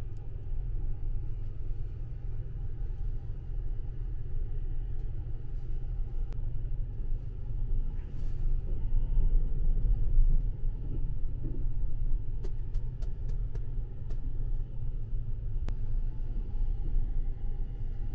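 Steady low rumble of the Sunrise Express sleeper train (a 285 series electric train) running, heard from inside a compartment. A few faint clicks come about two-thirds of the way through.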